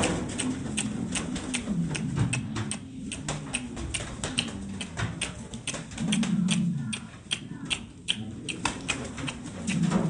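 A flock of domestic pigeons cooing low, over a rapid scatter of sharp taps and clicks, several a second.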